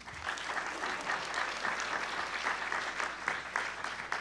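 Audience applauding, a dense, steady patter of many hands clapping.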